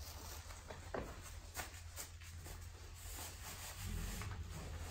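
Newspaper spread on the floor rustling, with a few short taps and clicks, as puppies and a person move about on it, over a low steady hum.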